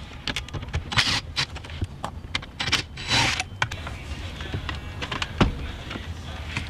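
Hands and tools working on a car: irregular clicks and knocks, with two short scraping or rustling noises and a sharper knock a little after five seconds, over a steady low hum.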